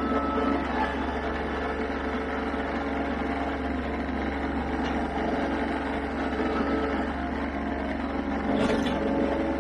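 Tractor engine running steadily, heard close up from a camera mounted on the tractor, with a short knock near the end.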